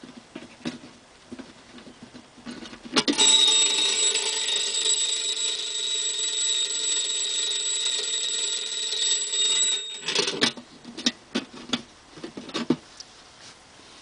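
The Schylling Steel Safe coin bank's alarm bell ringing continuously for about seven seconds while the door stands open, then cutting off abruptly. Light clicks of the combination dial come before it, and sharp clicks and knocks of the metal door after.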